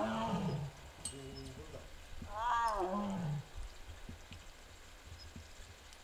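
Amur (Korean) tiger calling twice, about two and a half seconds apart. Each call is a short moan whose pitch rises and then falls.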